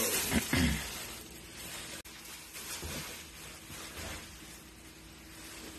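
Plastic wrapping around a flat-screen TV rustling and crinkling as it is handled and pulled away while the set is lifted out, loudest in the first second, then softer.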